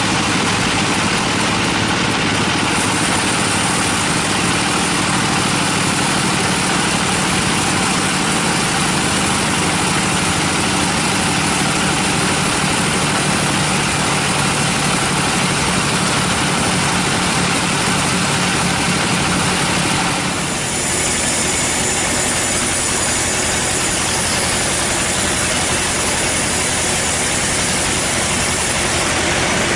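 Band sawmill running steadily, its engine and blade sawing through a teak log in a dense, loud mechanical noise. The sound shifts abruptly about two-thirds of the way through.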